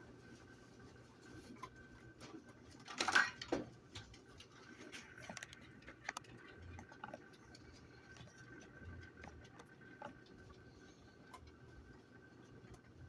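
Faint room tone with scattered small clicks and a brief rustling noise about three seconds in.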